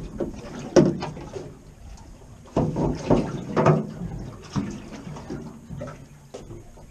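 Seawater sloshing and slapping against a small boat's hull in irregular splashes, with a sharp slap about a second in and the loudest run of splashes from about two and a half to four seconds in.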